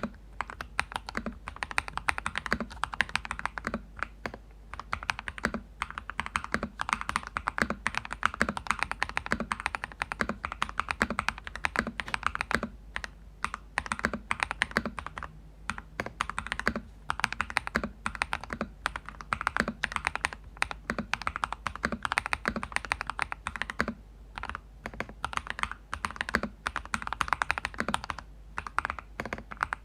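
Steady, fast typing on a Cheap60 EX 60% mechanical keyboard with lubed Crystal Red linear switches, each keystroke a firm, deep 'thocky' bottom-out with a short high click. The PC plate is damped with layers of double-sided tape and a 1 mm plastic sheet in place of foam, giving a louder, firmer sound.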